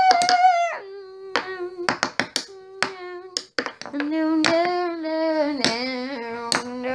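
A child's voice singing wordless, long held notes that step down in pitch, with sharp hand claps scattered through it.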